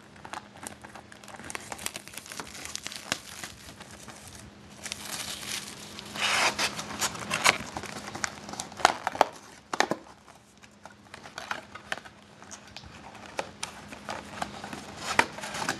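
Plastic and foil wrapping on a box of trading cards crinkling and tearing as it is opened by hand, in irregular crackles with a few sharper snaps, the loudest in the middle of the stretch.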